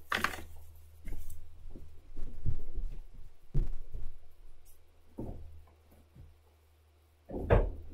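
Scattered muffled thumps and knocks of a person moving about a small room, about one a second, over a low steady hum. It goes almost silent for a moment shortly before a louder knock near the end.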